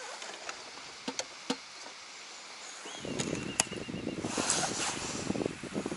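Fishing rod and baitcasting reel being handled in a boat. A few soft clicks come first, then from about three seconds in a busier stretch of rustling and knocking with a brief thin whine and a sharp click.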